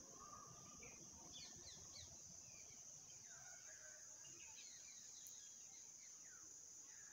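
Faint outdoor ambience: a steady high insect trill under many short, scattered bird chirps.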